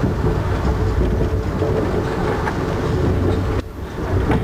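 Amtrak Northeast Regional passenger train rolling along the track, heard from inside a coach: a steady low rumble of wheels on rail with a faint rattle and a few steady tones, dipping briefly near the end.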